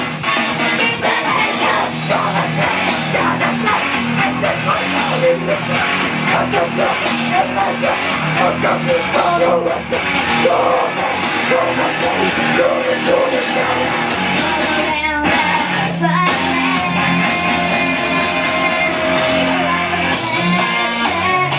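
Loud rock music with electric guitar and singing, played through the venue's sound system at a live concert.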